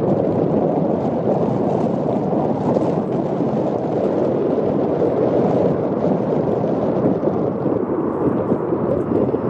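Wind buffeting the camera microphone: a steady, loud rushing rumble.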